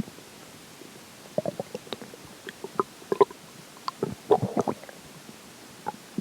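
Human stomach gurgling while digesting a meal: short, irregular pops and bubbling growls in loose clusters, the busiest run about four seconds in.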